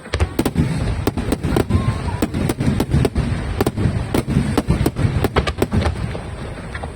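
Aerial fireworks going off in a rapid barrage: sharp bangs about three a second over a continuous low rumble of overlapping bursts.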